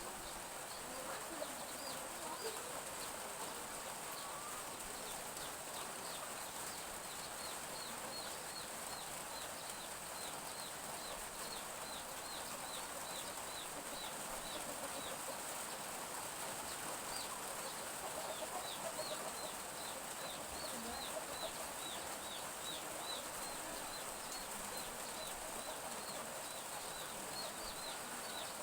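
Domestic chicks peeping: many short, high, falling peeps in quick runs, over a steady even hiss of light drizzle.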